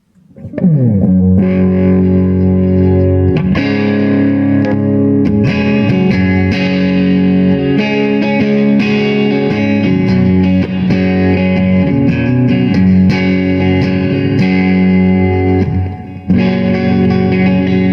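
Electric guitar, a Les Paul, played through a Donner Boost Killer boost pedal with every knob at halfway into a Blackstar HT-40 amp: chords and riffs with a mild crunchy overdrive. The playing breaks off briefly near the end, then resumes.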